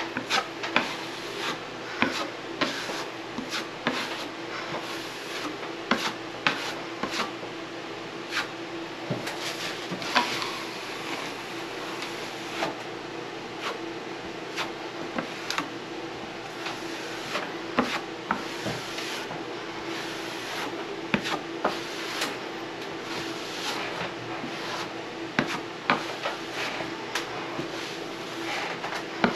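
Steel drywall knife scraping across wet joint compound on a ceiling in many short, irregular strokes with occasional sharp ticks, slicking out lines and dips in a thick bed coat. A steady low hum runs underneath.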